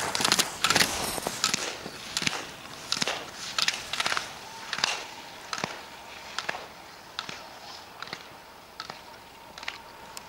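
Slalom skier running gates: a sharp clack about every three-quarters of a second as the hinged gate poles are knocked aside on each turn, over the scrape of ski edges carving on hard snow, growing fainter as the skier goes away.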